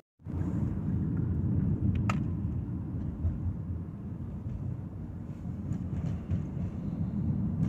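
Steady low rumble of a car driving along a city street, road and engine noise heard from inside the moving car. It cuts in after a split second of silence at the start.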